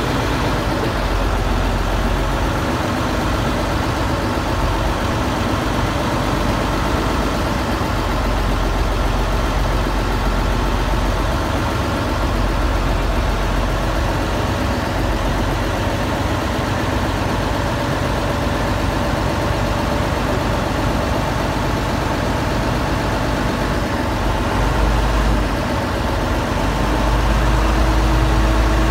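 Ferry boat's engine running steadily with a deep rumble, growing louder near the end.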